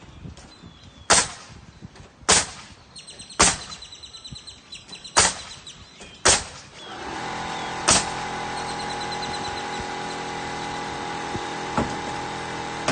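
Pneumatic nail gun driving nails, six sharp shots about a second apart, fed by a Metabo HPT cordless air compressor. About seven seconds in, the compressor's motor kicks on and runs steadily to refill the tank, with another shot and a fainter one over it.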